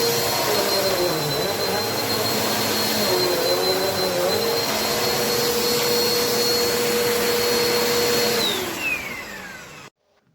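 Bissell AeroSwift Turbo Compact upright vacuum cleaner running, a loud rush of air with a steady high motor whine. Near the end the motor winds down: the whine falls in pitch as the sound fades and stops.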